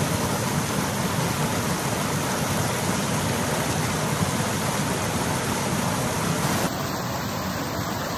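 A steady rushing noise with no distinct tones, its character changing slightly about two-thirds of the way through.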